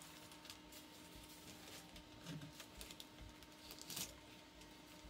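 Near silence: faint rustling and crinkling of kraft-faced fiberglass insulation being pulled down from a ceiling, the clearest crinkle about four seconds in, over a steady low hum.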